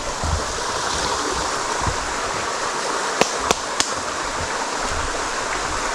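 Stream water running steadily, with three short sharp clicks about three seconds in.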